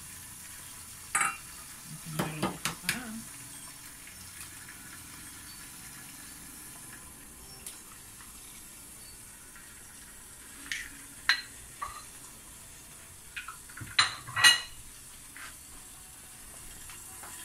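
Several sharp clinks and knocks of dishes and utensils, including a stainless-steel bowl, handled on a kitchen counter, in a few separate clusters with the loudest a few seconds before the end. Behind them runs a faint, steady sizzle of eggs frying in butter under a lid.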